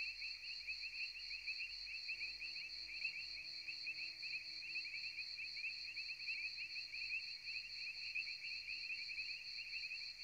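Background night ambience: a steady chorus of chirping insects, trilling at two high pitches. Faint steady tones sit underneath from about two seconds in until near the end.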